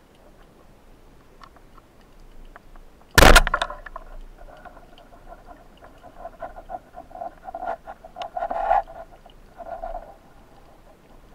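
Band-powered speargun firing underwater: one loud, sharp crack about three seconds in. A run of short, irregular humming pulses follows over the next several seconds.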